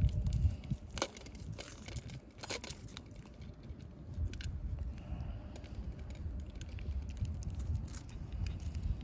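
Cats crunching dry food, an irregular patter of small crackles and clicks, over a low rumble.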